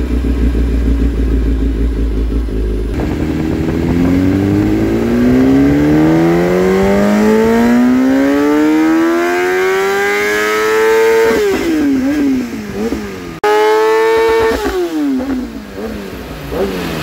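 Kawasaki ZX-10R's inline-four with a Carbox F632 carbon exhaust making a full-throttle dynamometer pull: a steady note for about three seconds, then the revs climb smoothly for about eight seconds to near the top. The throttle then shuts and the revs fall away, and after a brief break near the end they drop once more from high.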